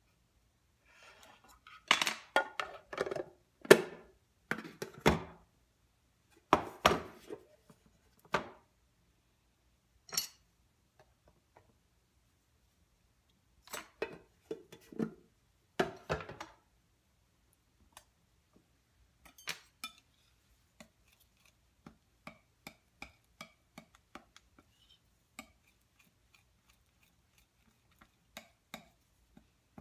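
Metal palette knives clinking, knocking and scraping against open paint tins and the tabletop in irregular strokes, loudest in the first half. Lighter, quicker taps and ticks follow as paint is spread on a slab.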